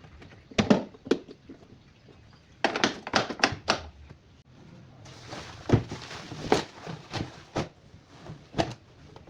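A series of irregular knocks and clicks, with a quick cluster of them about three seconds in and a faint steady hiss starting about five seconds in.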